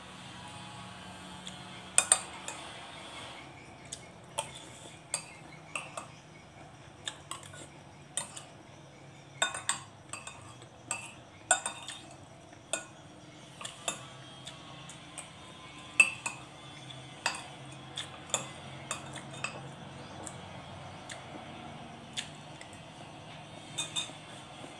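Cutlery clinking against a dish in irregular single strikes, about one a second, each with a short ring.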